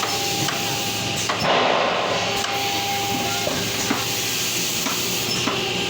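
Pneumatic positioning pins on a CNC router table working: a clack and a hiss of air about a second and a half in. Steady workshop machine noise with a faint whine and small clicks runs under it.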